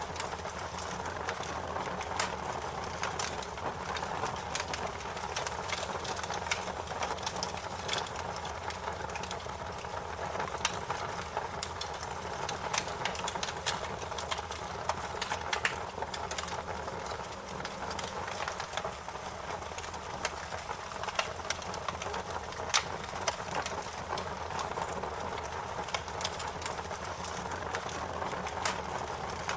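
Fire crackling: a steady hiss and rumble with frequent irregular sharp pops and snaps.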